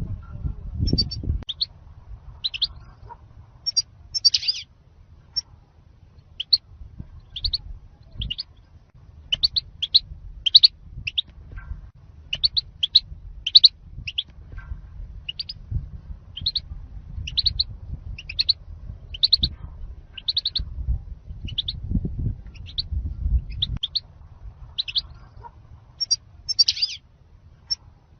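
European goldfinch repeating short, high chirps, about one or two a second: the song style goldfinch keepers call 'zalzal', played to lure and train goldfinches. A low rumble runs underneath.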